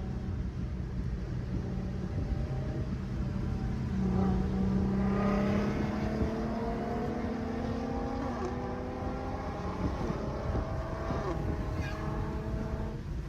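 Car engine running and accelerating: its pitch climbs slowly over several seconds from about four seconds in, then levels off, over a steady low rumble.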